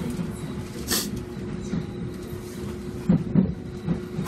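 Seoul Metro Line 1 train's Mitsubishi GTO-VVVF traction inverter giving a steady hum as the train brakes slowly into a station, over running-gear rumble. A brief hiss about a second in, and a few knocks near the end, the loudest sounds.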